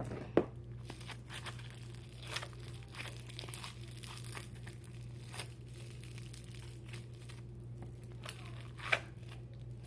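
Sticky, stiff slime being kneaded and pulled apart by hand, giving scattered crackles and small tearing sounds, over a steady low hum.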